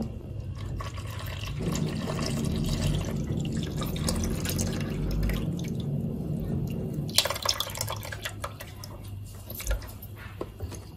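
Milk pouring from a carton into a pot in a steady stream. About seven seconds in the stream gives out, and the last of the milk drips and dribbles from the carton's spout.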